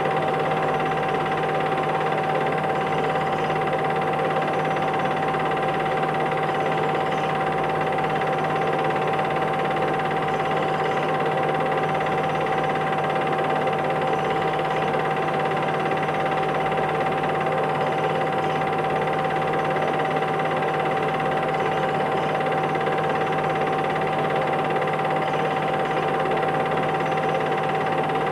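Steady mechanical hum and hiss with a constant whine over it, unchanging throughout; no music is heard from the brass players in the picture.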